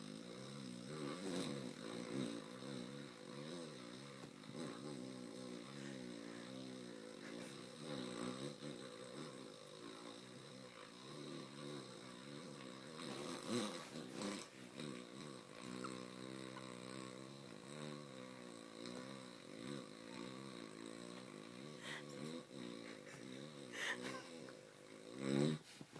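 A person snoring in one long drawn-out snore without a break, its buzzing pitch wavering up and down, with a sudden louder burst near the end.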